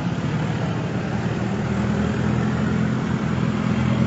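A motor vehicle engine running steadily at low revs, a low hum that grows a little louder in the second half.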